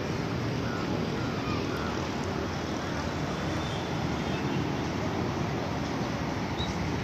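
Steady rumbling city background noise, mixed with wind on the microphone.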